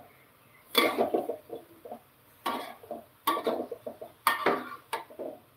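Metal spatula scraping and clanking against an aluminium wok as sliced angled luffa is stir-fried, in about six separate strokes a second or so apart.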